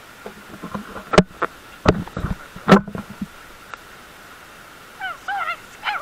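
A few sharp knocks and bumps right at the microphone in the first half. Near the end comes a burst of high, sliding whoops from an excited boy's voice.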